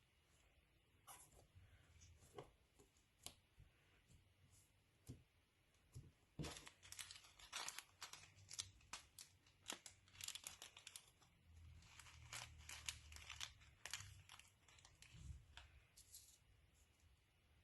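Faint tearing and crackling as slime mixed with cotton candy is pulled apart by hand: irregular small crackles, sparse at first and thickest in the middle stretch.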